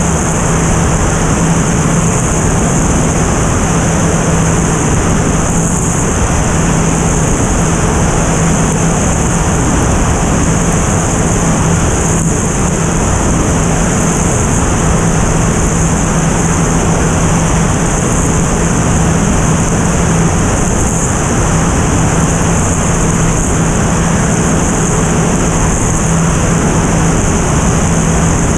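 Single-engine propeller airplane in steady cruise: a constant engine and propeller drone with one steady low hum, under a loud rush of wind over the airframe.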